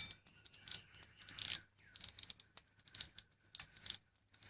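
Faint, irregular light clicks and short metallic scrapes as a White Industries freewheel is spun by hand off the fine thread of an aluminium pedal crank arm.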